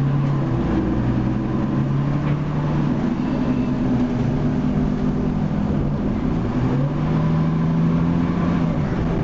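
Cummins L10 straight-six diesel of a Leyland Lynx Mk2 bus, heard from inside the passenger saloon, pulling the bus along at a steady hum. Its pitch climbs about two-thirds of the way in, holds, then falls away near the end.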